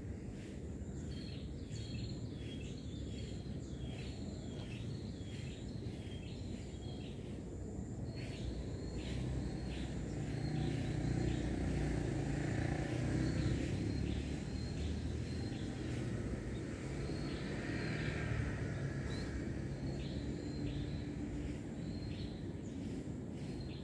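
Outdoor ambience: a steady low rumble that swells a little around the middle. Over it, a bird gives short chirps again and again, quickly at first and more spaced out later.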